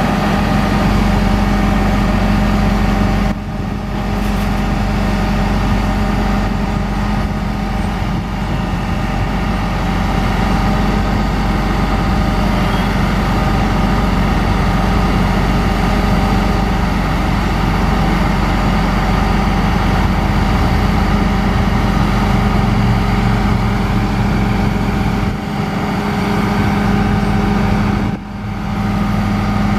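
Caterpillar 3126 diesel engine of a grapple truck running steadily while it powers the hydraulic grapple boom, with a steady whine above the engine note. The sound dips briefly about three seconds in and again near the end.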